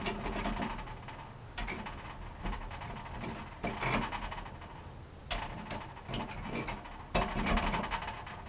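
A wrench turning the nut of a water heater connector while pliers grip the copper pipe: irregular metallic clicks and short scrapes as the fitting is worked loose.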